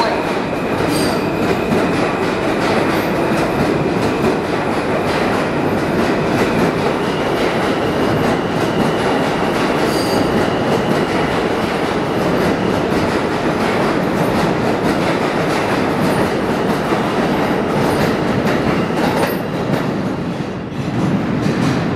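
R160 subway train leaving the station, its cars rolling past on the rails in a loud, steady rumble with many short clicks from the wheels over the track. The sound dips briefly near the end as the last car pulls into the tunnel.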